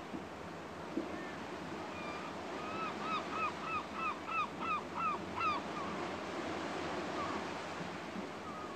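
A gull calling a rapid series of about ten arched notes, roughly three a second and getting louder, from about two seconds in to five and a half, with a few fainter calls after. Under it is a steady background hiss, like surf.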